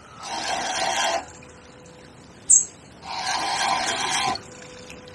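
Fixed-spool fishing reel being wound in two bursts of whirring, about a second each, as a small chub is played in, with a brief high chirp between them.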